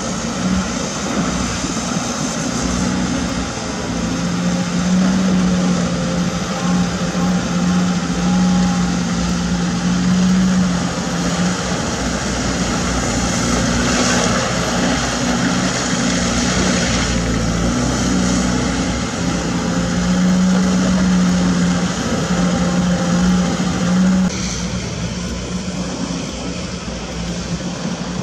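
Caterpillar 320D2 GC excavator's diesel engine running steadily under working load, with a strong steady low hum and a wash of hydraulic and mechanical noise above it; the sound eases off a little about four seconds before the end.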